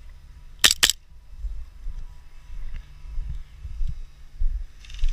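Two quick shots from an airsoft pistol, sharp cracks about a fifth of a second apart, over a low rumble on the microphone.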